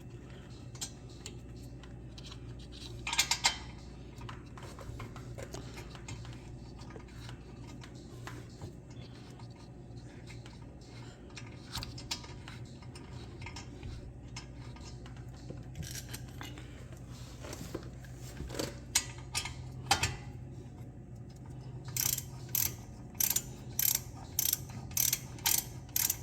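Ratchet wrench tightening a brake caliper bolt, its pawl clicking with each back-swing: scattered clicks at first, then a steady run of about two to three strokes a second near the end. A steady low hum runs underneath.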